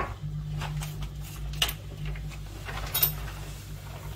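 Two or three short, light clicks and taps of kitchen utensils being handled, the sharpest about one and a half seconds in and near three seconds in, over a steady low hum.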